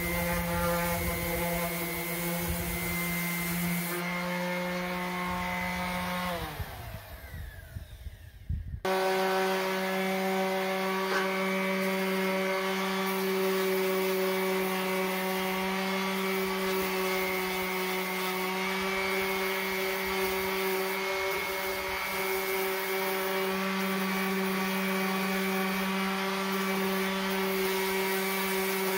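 Bauer electric random orbital sander running against the steel mower deck, sanding off rust and old paint with a steady motor hum and rubbing. About six seconds in it winds down, falling in pitch, then starts again suddenly a couple of seconds later and runs steadily.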